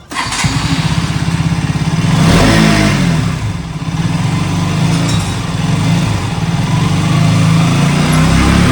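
Motorcycle engine starting suddenly and running steadily, revved briefly about two seconds in and again near the end.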